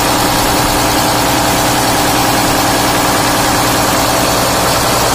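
Tatra 8×8's twelve-cylinder diesel engine idling steadily. It is running after a top-end rebuild, with new piston rings fitted to cure blow-by that had been throwing oil out of the crankcase breather.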